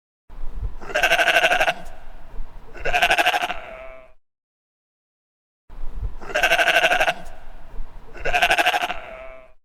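Sheep bleating: two loud, quavering bleats, a pause of about a second and a half, then two more bleats in the same pattern.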